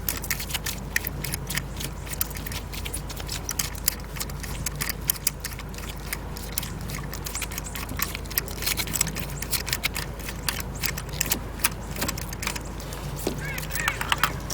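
Irregular light metallic clicks and clinks of hand tools and parts being handled during spark plug work, over a steady low hum.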